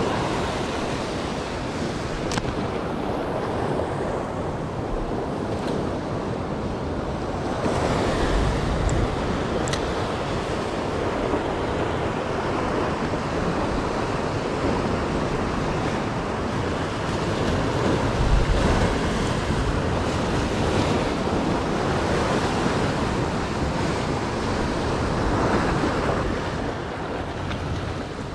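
Ocean surf washing against the rocks, swelling and easing a few times, with wind buffeting the microphone.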